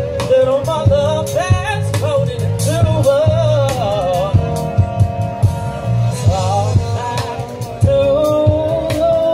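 Live band playing through large outdoor PA speakers: a sung melody over electric guitar, a heavy bass line and a drum kit.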